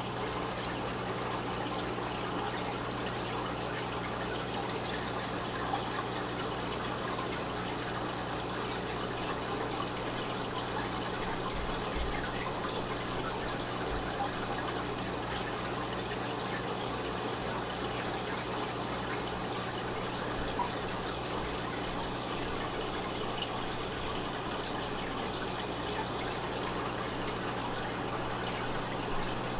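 Steady trickling of circulating aquarium water over a low, steady hum.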